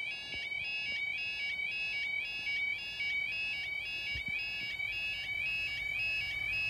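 Level crossing yodel alarm sounding steadily as a repeating warble, each cycle stepping up in pitch, about three times a second. It is the audible warning that the barriers are down for an approaching train.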